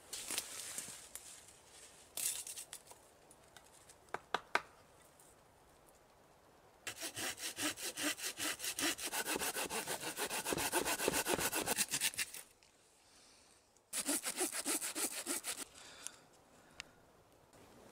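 Folding hand saw cutting through a fallen branch in quick, even strokes: one long run of about five seconds, a short pause, then a shorter run.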